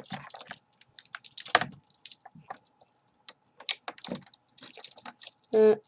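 Metal handcuffs being opened and handled: irregular small metallic clicks and jingles, with a couple of louder clacks.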